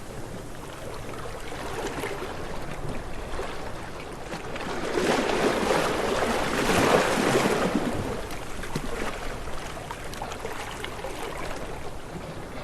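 Ocean waves washing in, one wave building about a third of the way in, breaking loudest around the middle and then draining away.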